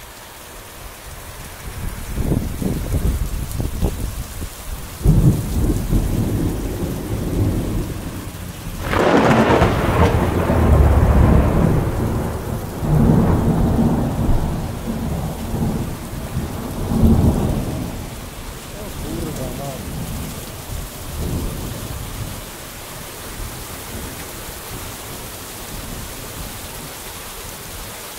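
Heavy rain pouring down with a steady hiss through a thunderstorm. Thunder rumbles from about two seconds in, with a loud crack about nine seconds in. It rolls on and dies away after about eighteen seconds, leaving the rain.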